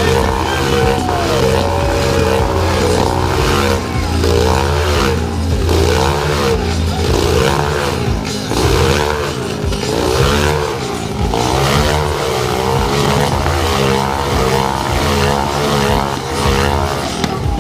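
Motorcycle engines running hard inside a 14-foot steel globe-of-death cage, their pitch swelling and falling about once a second as the riders circle the globe.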